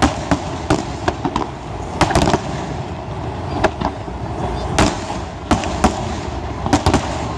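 Aerial firework shells bursting in a string of sharp bangs, irregularly spaced. A quick cluster comes about two seconds in and another near the end.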